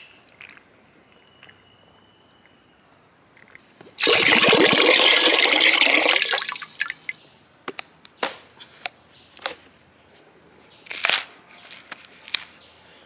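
Coconut water poured in a loud, steady stream into a clay pot for a few seconds, starting about four seconds in and tailing off. It is followed by several sharp knocks as the hooked machete strikes the young coconut.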